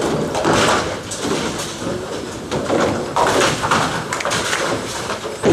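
Bowling ball rolling down a ten-pin bowling lane and striking the pins, with a burst of pin clatter about three seconds in, over the clatter of balls and pins from neighbouring lanes.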